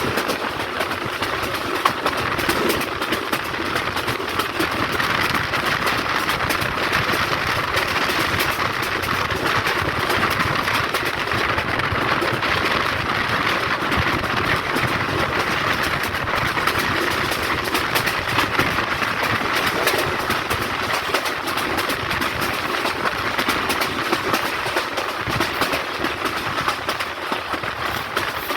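Rangpur Express passenger train running steadily along the line: a continuous rolling noise from wheels on rail, with a constant scatter of clicks and clatter.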